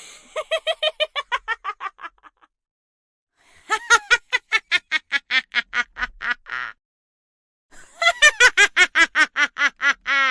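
Witch's cackling laugh, three high-pitched bouts of about two to three seconds each, every bout a fast run of short 'heh-heh' pulses, with brief silences between.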